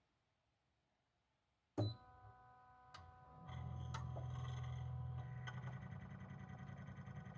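Mitsubishi Heavy Industries SRC2221T inverter air-conditioner outdoor unit starting up in cooling mode. After near silence there is a sharp click about two seconds in, then a set of steady high inverter tones and another click. About three and a half seconds in, a low steady hum sets in as the unit comes up to running.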